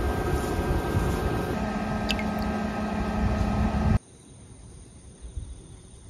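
Air conditioner running with a steady hum while its condensate drains from a hose into a plastic bucket. About four seconds in it cuts off abruptly, leaving only quiet outdoor air.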